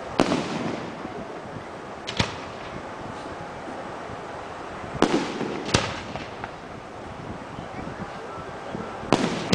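Aerial fireworks shells bursting: five sharp bangs, one at the start, one about two seconds in, two close together around five seconds in, and one near the end. Several leave a rolling rumble after them, over a steady low hiss.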